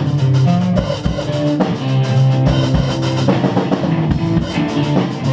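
A rock band playing live: drum kit with kick drum hits, guitar and bass.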